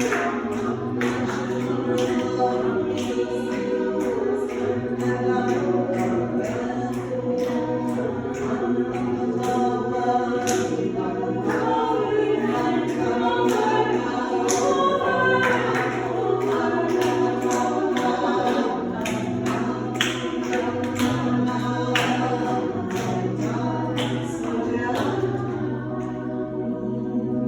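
A choir singing a cappella, several voices holding sustained chords.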